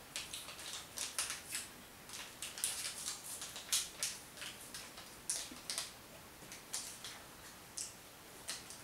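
Crinkling of a small plastic candy wrapper being unwrapped by hand: irregular, crisp crackles coming in quick clusters.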